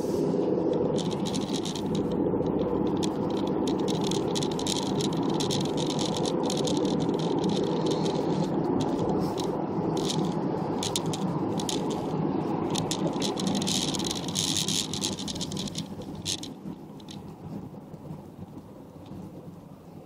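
Road and engine noise inside a moving vehicle, with a busy clattering rattle over it. Both die down over the last few seconds as the vehicle slows to a stop in queuing traffic.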